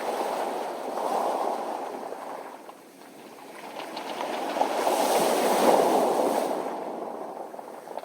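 Waves washing in and out over a pebble beach, the rush of water mixed with a faint clatter of rolling stones. The surge eases about three seconds in, then a bigger wave builds to a peak just past the middle and draws back.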